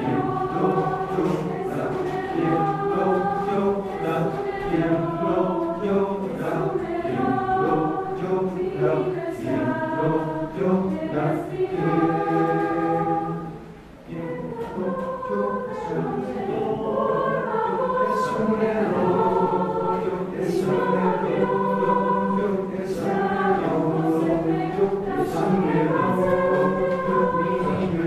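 Choir singing a three-voice choral canon a cappella, several sustained parts overlapping. About halfway through the singing drops away almost to nothing for a moment, then comes back in.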